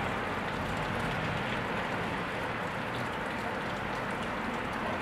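Steady rain falling, an even hiss with the faint ticks of drops.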